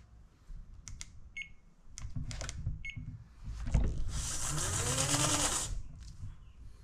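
Honda Motocompacto electric scooter, just switched on, giving two short electronic beeps about a second and a half apart amid light clicks of handling. After that comes a louder hissing whir with a rising pitch, lasting about two seconds.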